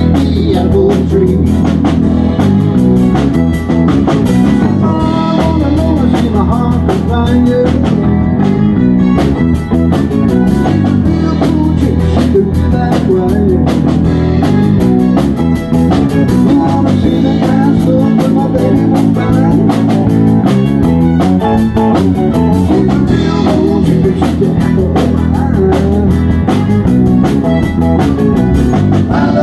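A live rock and roll band playing: electric guitar, electric bass and drum kit.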